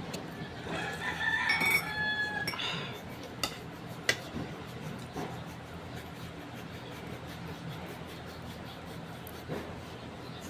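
A rooster crows once, one long call of about two seconds near the start. Two sharp clicks follow a moment later.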